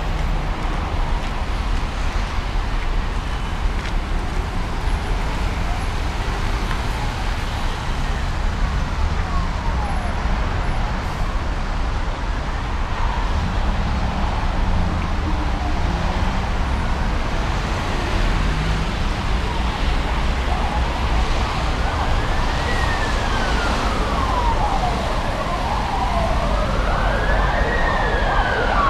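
Wailing emergency-vehicle siren sweeping up and down in pitch, one cycle about every two and a half seconds, faint at first and growing louder toward the end as it approaches. Steady city traffic noise runs underneath.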